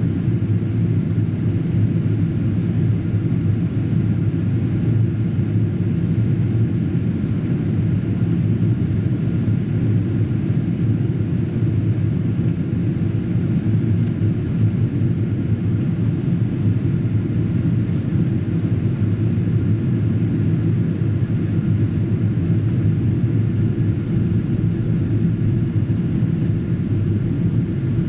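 Steady cabin noise inside a Boeing 777-200ER on approach: an even, low rumble heard through the fuselage.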